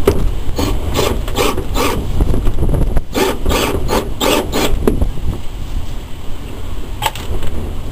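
Rasping back-and-forth strokes from hand work on the wood or metal structure, about three a second in two short runs, with wind rumbling on the microphone throughout and a single click near the end.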